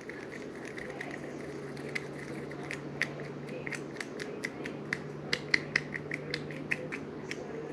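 Light scraping and irregular sharp clicks, a few a second, typical of a stick stirring a small batch of two-part sealing compound in a cup and tapping its sides, over a steady low hum.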